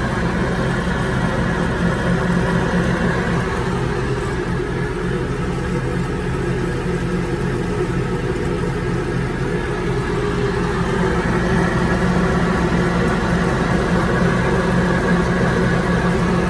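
A vehicle running on a lift with a rear wheel turning: a steady mechanical drone from the drivetrain and spinning wheel, which is being checked for a noisy rear wheel bearing.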